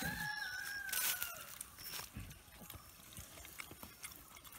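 A rooster crowing once: one held call of about a second and a half near the start that drops in pitch at the end.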